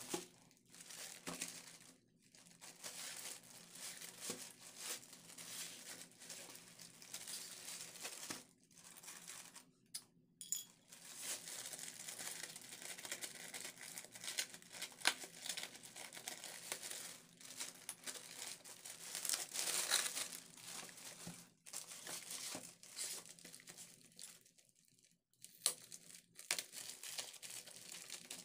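Plastic mailer bag wrapped in packing tape crinkling as it is handled and cut open with a hobby knife, with the tape tearing. The crackling comes and goes in irregular spells with a few short pauses.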